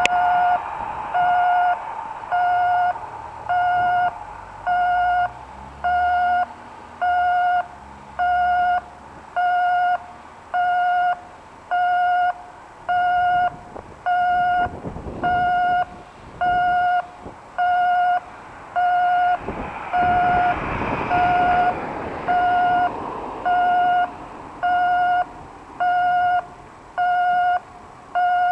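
Japanese railway level-crossing warning alarm with an unusual electronic tone: one steady beep repeating about once a second.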